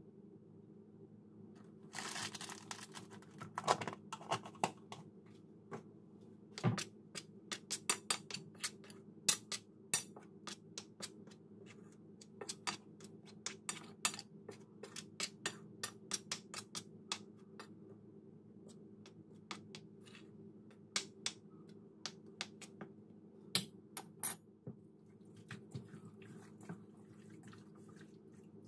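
A metal utensil mixing seasoned flour on a ceramic plate: irregular sharp clicks and scrapes against the plate. A brief scraping hiss about two seconds in, then many quick taps through the middle, growing sparser toward the end.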